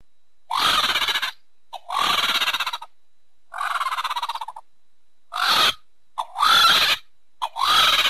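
Sound-designed calls for the extinct giant flightless bird Dromornis stirtoni: about six harsh, rattling calls, each under a second long, some with a short note just before. Each call opens with a quick rise in pitch.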